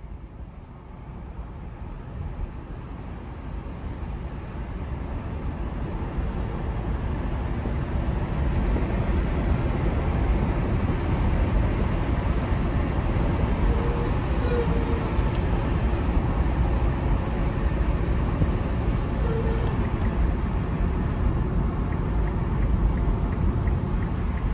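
Road and tyre noise inside the cabin of a Nissan Leaf ZE0 electric car while driving, with no engine sound. The noise grows louder over the first several seconds and then holds steady.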